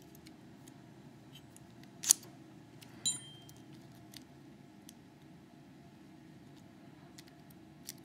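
Metal X6V euro-profile cylinder lock being turned and handled by hand, giving small metallic clicks: one sharp click about two seconds in, a second click with a brief metallic ring about a second later, and faint ticks between.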